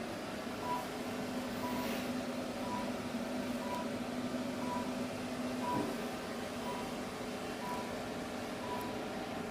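Therapy laser unit beeping while it emits: a short high beep about once a second. A steady low hum runs under the beeps and stops about six seconds in.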